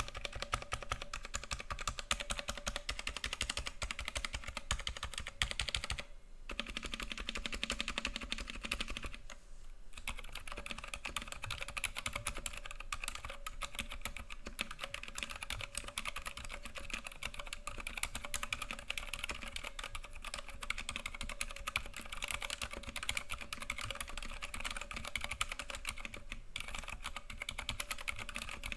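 Continuous fast typing on a Cherry G80-3000N TKL mechanical keyboard with Cherry MX Silent Red switches: a relatively quiet, dense run of keystrokes without the sharp bottom-out clack, broken by a few brief pauses.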